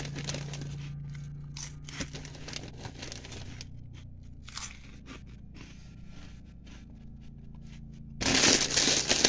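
Chewing and crunching on Chester's Flamin' Hot Fries, crisp fry-shaped snacks, with small rustles of the bag, over a steady low hum. About eight seconds in, the chip bag crinkles loudly as it is handled.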